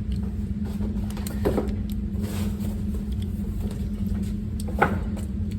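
A steady low hum with a faint click about a second and a half in and a sharper click or knock near the end.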